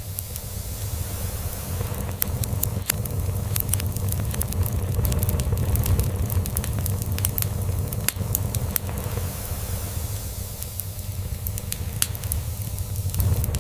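Crackling log fire: frequent sharp pops and snaps over a steady hiss. Beneath it runs a cat's low, continuous purring that swells and fades slowly.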